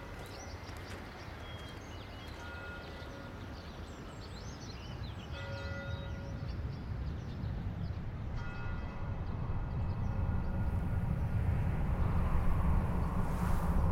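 Outdoor city ambience: birds chirping, a few short distant held tones, and a low rumble that swells steadily louder through the second half.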